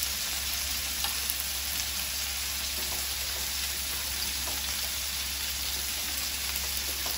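Stuffed kantola (spiny gourd) halves shallow-frying in oil in a pan over a medium flame: a steady, even sizzle.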